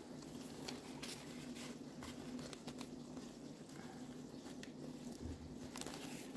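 Faint rustling and light clicks of a plastic case and zipper pouch being handled, over a low steady hum.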